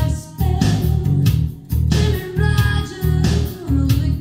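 B&W DM330 floorstanding loudspeakers playing a rock song with guitar, bass and a steady beat, with a singing voice, picked up in the room.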